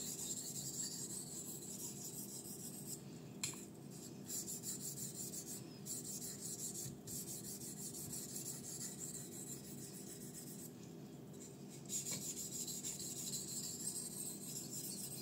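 Steel knife blade (154CM) stroked back and forth on a wet 3000-grit Suehiro Ouka waterstone, a steady rhythmic scraping. This is the medium-fine grit stage of sharpening. There is a short pause about eleven seconds in, then the strokes resume.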